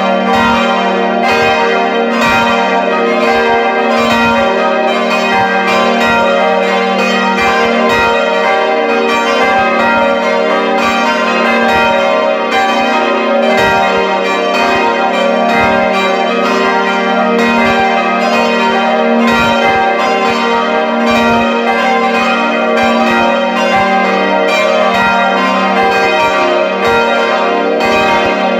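Full peal of five swinging church bells ringing together, their strokes overlapping continuously: four bells cast by Friedrich Wilhelm Schilling in 1962, tuned g', b-flat', c'' and d'', and one cast by Mathias Stapf in 1772, tuned e-flat''.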